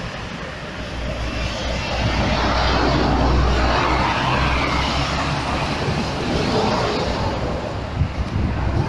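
Heavy truck's diesel engine running with a steady roar and low rumble, swelling to its loudest about halfway through and easing off a little.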